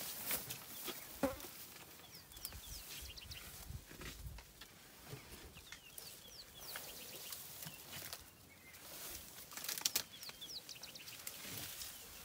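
African elephant feeding in bush: leaves, twigs and long grass rustle and crackle as it browses, with sharp snaps now and then. Quick high chirps come in three short bursts in the background.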